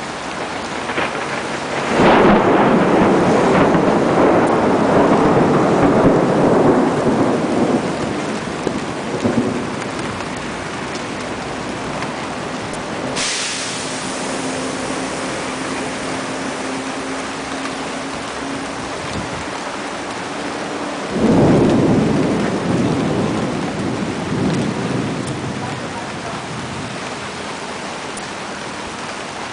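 Thunderstorm: steady rain with two rolls of thunder. The first starts suddenly about two seconds in and rumbles away over several seconds; the second comes about twenty-one seconds in and fades the same way.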